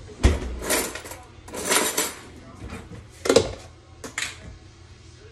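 Kitchen counter handling sounds: a plastic tub of spread set down on the counter and its lid worked off, giving several knocks and clatters and a longer rustling scrape, with a last click a little after four seconds in.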